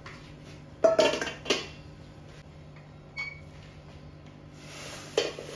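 Stainless-steel cookware being handled: a few metal clanks with a short ring about a second in, a lighter clink midway, and the steel pot lifted off the gas burner near the end, with a soft rushing sound and one more knock.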